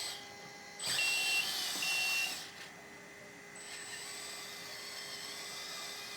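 Small electric motors and gearing of a 1/14 scale LESU RC wheeled excavator whirring as the model drives and steers. A louder whirring burst with a high whine comes about a second in and stops after about a second and a half; a quieter steady whir follows.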